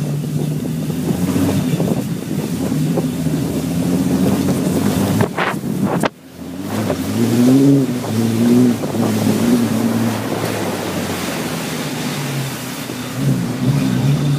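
Vehicle engine running as it tows a rider on a toboggan over a dirt track, its pitch rising and falling with the throttle. Wind buffets the microphone.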